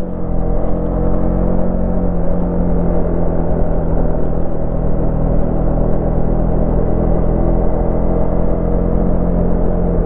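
Yamaha MT-15's 155 cc single-cylinder four-stroke engine running at steady revs while riding, its exhaust note holding an even pitch.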